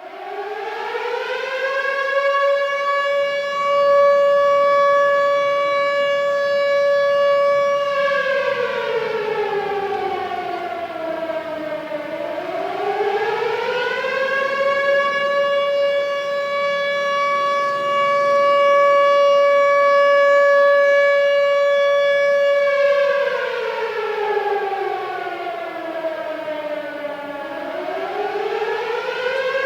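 Air-raid siren wailing. It winds up from silence, holds a steady wail for about six seconds, falls in pitch over about four seconds, then rises and holds again. It winds down and back up a second time near the end.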